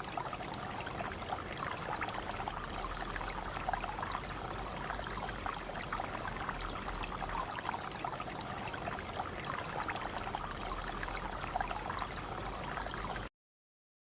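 Valley stream water flowing, a steady babbling trickle full of small bubbly splashes. It cuts off suddenly near the end.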